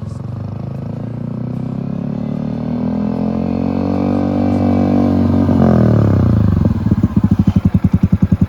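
A Yamaha XSR 155 motorcycle's single-cylinder engine climbing steadily in revs for about five seconds, dropping off sharply, then running at low revs with a distinct pulsing beat near the end.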